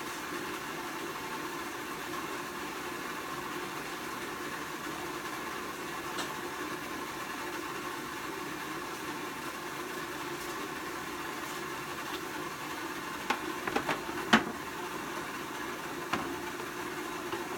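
A steady mechanical hum runs throughout. Near the end there are a few sharp knocks and clatters, the loudest about fourteen seconds in, as a coiled pressure-washer hose is handled.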